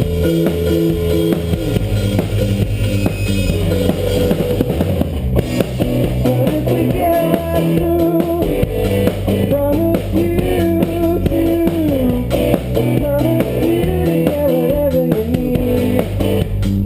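Live rock band playing an instrumental passage: electric guitar carrying a melody over bass and drum kit.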